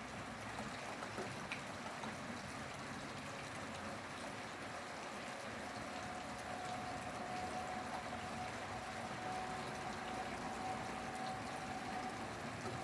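Steady rainfall: an even hiss of falling rain with a few scattered drop ticks. A faint steady tone joins it about halfway through.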